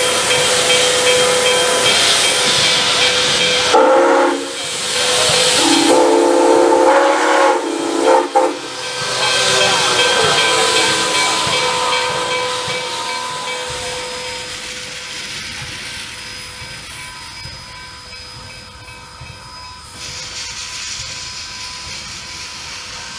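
Nickel Plate Road 765, a 1944 Lima 2-8-4 Berkshire steam locomotive, venting steam with a loud, steady hiss. It blows its steam whistle twice, a short toot about four seconds in and a longer blast from about six to eight and a half seconds. The hiss then fades away.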